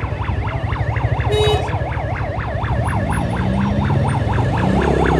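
Ambulance siren sounding close by in slow street traffic, a fast yelp rising and falling several times a second, over the low rumble of vehicle engines.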